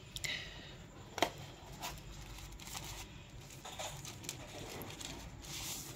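Faint rustling and crinkling of a thin plastic wrapping bag as a tablet is handled and lifted from its box, with a light tick about a second in.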